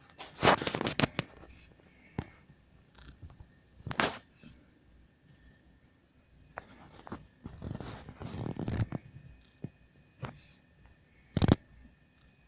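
Parts and tools being handled on a workbench: a string of sharp knocks and clicks as pieces are set down, with a stretch of rustling and scraping about eight seconds in.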